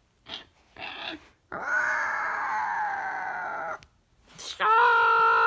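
Two short grunts, then a long, bear-like growling roar that sinks slightly in pitch, for the teddy bear going savage. Near the end, a rising wail that settles into a steady, siren-like tone.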